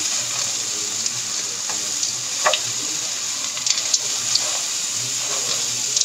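Diced tempe and roasted peanuts in chili paste sizzling in a non-stick frying pan, stirred and turned with a spatula. A steady frying hiss, with a few light clicks and scrapes from the spatula, two of them about halfway through.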